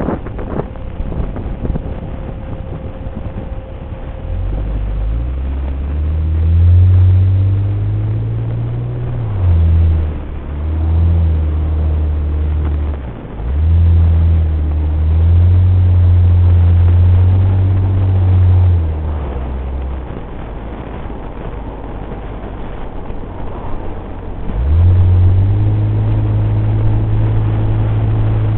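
Nissan Elgrand minivan's engine heard inside the cabin under road and wind noise, pulling under throttle. Its low note climbs and falls back twice in the first half, as at upshifts, then drops away for a few seconds and picks up strongly again near the end.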